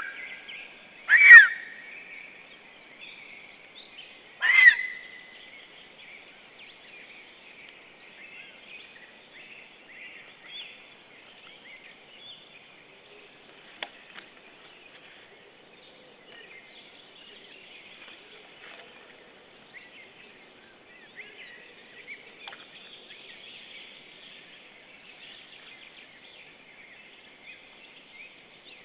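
Two loud, sharp calls about three seconds apart, from lesser spotted eagles at the nest. A steady chorus of small songbirds sings underneath.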